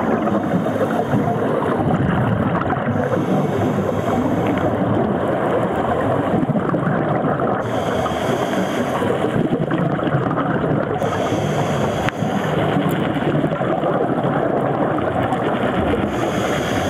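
Steady, muffled rushing noise of water picked up underwater by a waterproof compact camera's built-in microphone, with no housing around it.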